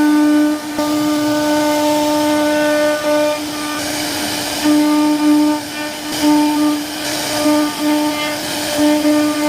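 CNC router spindle whining at a steady high pitch as the bit carves wood, the tone dropping out briefly and coming back every second or so, with a hiss of cutting that swells at times.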